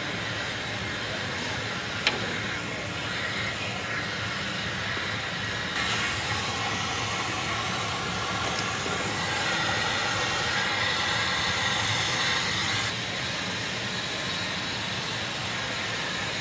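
Steady hissing shop noise in an aircraft maintenance hangar, such as ventilation or compressed air, with a single sharp click about two seconds in. The hiss changes character at about six seconds and again at about thirteen.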